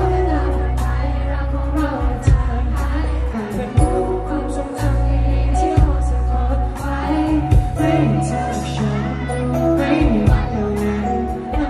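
Live pop band playing: a singer sings into a microphone over electric guitar, held bass notes and regular drum hits.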